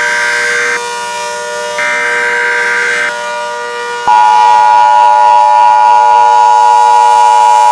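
Emergency Alert System tones. Two buzzing data bursts of the header come about a second apart. Then, about four seconds in, the loud steady two-tone attention signal starts, all over fainter steady background tones.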